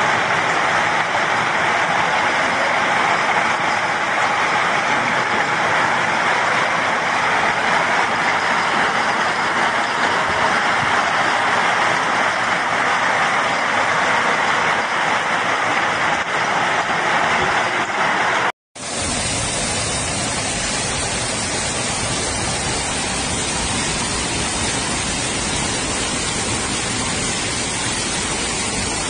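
Steady, dense hiss of a heavy hailstorm over a hail-covered street. About two-thirds of the way through it cuts off briefly, and then comes the steady rush of muddy floodwater flowing down a street.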